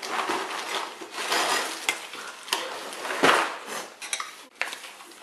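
Paper and plastic wrapping crinkling and rustling in several swells, with a few sharp clicks, as a paper slip is pulled out of a cereal box and unfolded.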